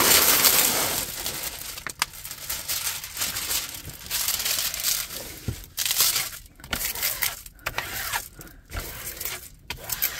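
Clear plastic film over a diamond-painting canvas crinkling and rustling as it is handled and a flat plastic smoothing tool is pushed across it. The crinkling is loudest in the first second, then comes in shorter, irregular strokes.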